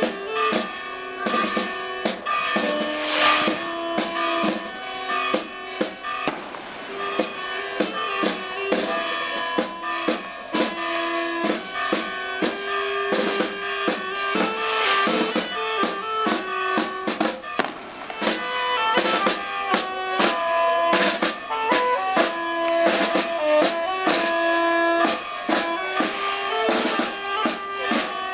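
Procession band playing a march: a saxophone and other wind instruments carry a stepping melody over a steady snare and bass drum beat.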